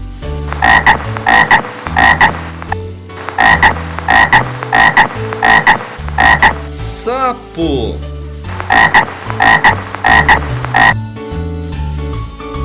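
Frog croaking: short, loud croaks repeated about twice a second in three runs, with brief pauses between the runs.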